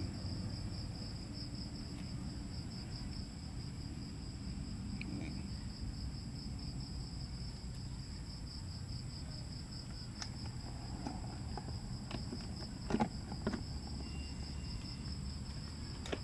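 Crickets chirping in a steady, fast pulsing trill, with a couple of soft knocks about three-quarters of the way through.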